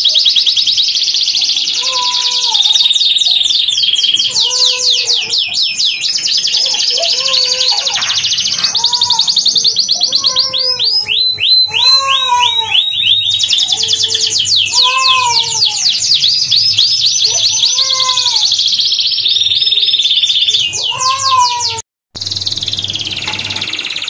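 Domestic canary singing a long, continuous song of fast trills and rolling runs of repeated high notes. Underneath, a lower rising-and-falling note repeats about once a second, and the sound cuts out for a moment near the end.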